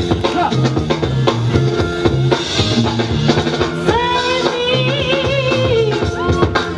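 Dance music with a steady drum beat and a repeating bass line. About four seconds in, a held melody line with vibrato comes in over it.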